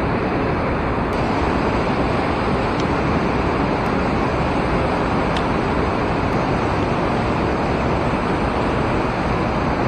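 Water pouring over a river dam: a steady rush of noise with no change in level.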